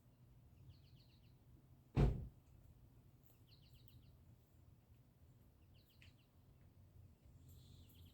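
Small birds chirping in short quick runs of high notes, four times. One loud thump about two seconds in.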